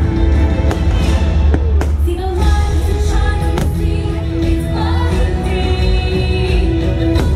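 Fireworks-show soundtrack music with a singing voice and heavy bass, played loud over the park's speakers, with the sharp bangs of fireworks bursting several times.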